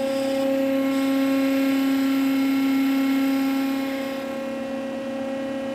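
DIY CNC router machine running with a steady whine, slightly softer from about four seconds in, as it moves the tool around inside an aluminium ring to probe for its centre.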